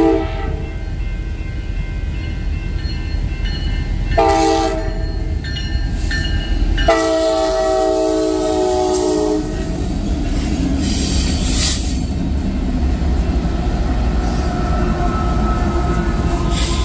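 Union Pacific freight train's locomotive air horn sounding over the rumble of the passing diesel locomotives. One blast cuts off just after the start, a short blast comes about four seconds in, and a longer one runs from about seven to nine and a half seconds. After that comes the steady rumble and wheel clatter of double-stack container cars rolling past.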